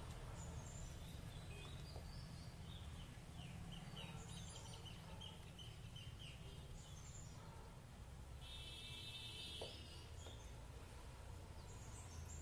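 Faint steady background hum with scattered short, high chirps of small birds, and a longer bird call about two thirds of the way through.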